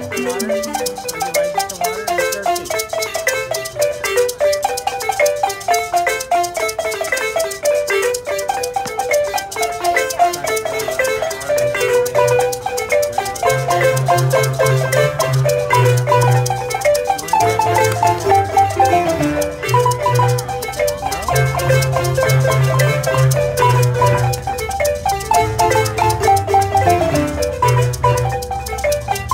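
Zimbabwean-style marimba ensemble, wooden bars over tube resonators, playing an upbeat interlocking tune of quick repeating mallet notes. Low bass-marimba notes come in strongly about twelve seconds in, with a shaker rattling along throughout.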